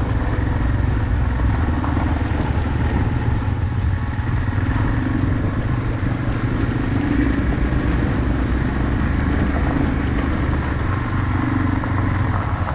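Yamaha TW225E's single-cylinder four-stroke engine running steadily as the motorcycle rides along a trail.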